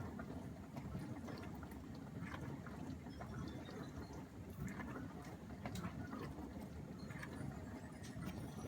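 Beko DFN28R30X dishwasher running mid-programme with water sloshing inside, a steady low rumble with a few faint clicks. The programme is stuck on its last minute and never finishes, which the owner takes for a fault in the machine.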